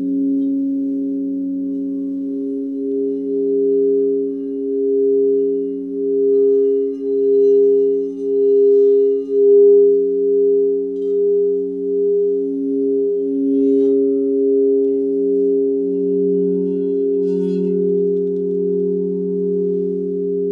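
Crystal singing bowls ringing together, several steady low tones overlapping and slowly wavering and swelling in loudness. A few faint high tinkles come in near the middle and toward the end.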